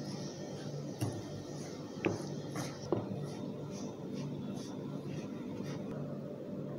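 Metal spoon stirring and scraping a crumbly rice-flour mixture in a metal pan, with a few sharp clinks of spoon on pan in the first three seconds, over a low steady hum.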